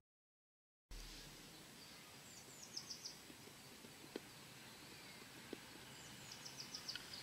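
Faint outdoor background after a second of dead silence. A small bird sings two short runs of quick, high, falling chirps, about two seconds in and again near the end, with a couple of faint clicks between them.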